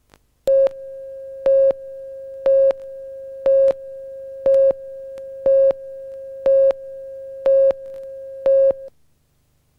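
Broadcast tape countdown leader: a steady electronic tone with a louder beep once a second, nine beeps, stopping abruptly about a second before the end.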